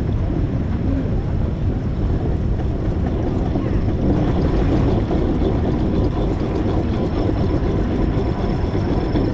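Steady rumbling noise from a ride on a 4-inch scale McLaren steam traction engine, with faint voices in the background.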